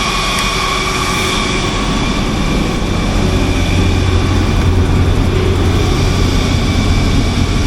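400 kW gas-fuelled Generac generator running under load on a load bank test: a steady drone with a strong low hum and several high whining tones, getting slightly louder about three seconds in.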